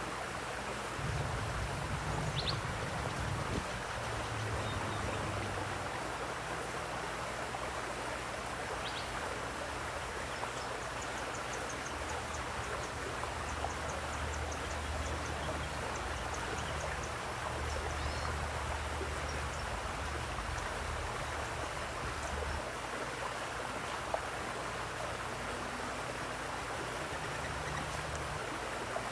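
Steady rush of running water, with a few faint bird chirps and, in the middle, a run of quick high chirps. An uneven low rumble comes and goes underneath.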